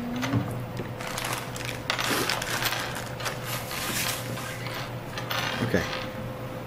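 Small jacks clicking and clattering against a wooden tabletop as they are pushed around and gathered up by hand, busiest in the middle.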